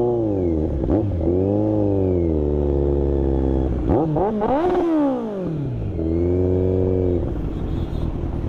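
Kawasaki Z900's inline-four engine revving up and down as the motorcycle pulls away at low speed, with repeated throttle blips and a sharp rev about four to five seconds in.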